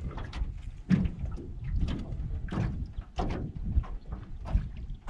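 Wind rumbling on the microphone, with irregular knocks and splashes of choppy water against the jon boat's metal hull.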